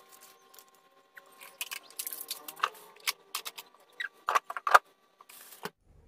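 Food-storage containers and lids being handled: scattered clicks, knocks and rustles, with a cluster of sharper knocks about four to five seconds in.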